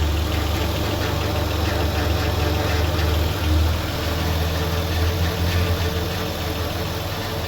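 Hyundai Tiburon GT engine running at a steady idle, with a deep, even hum that swells slightly a couple of times.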